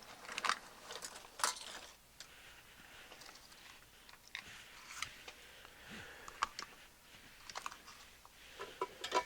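Irregular crackling and several sharp clicks of desoldering work on a receiver's circuit board, as old solder is cleared from the transistor holes.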